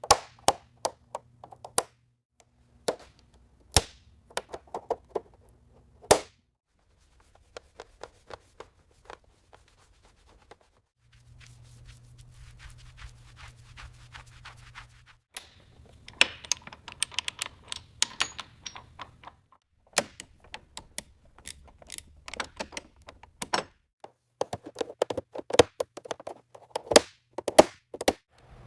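Sharp clicks, taps and knocks of hand tools working on the car, some in quick rattling runs, over an intermittent low hum.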